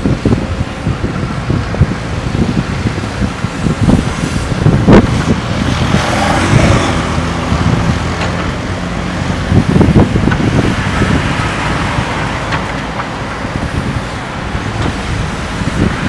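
JCB 3DX backhoe loader's diesel engine running steadily under load while the backhoe arm digs soil, with two sharp knocks about five and ten seconds in.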